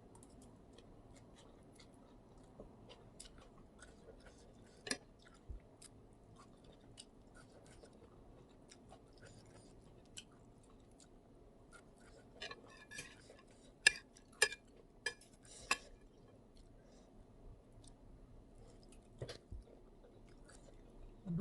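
Close-miked chewing of a spicy instant-noodle salad with shrimp and squid: small wet mouth clicks throughout, with a run of louder, sharper clicks a little past halfway.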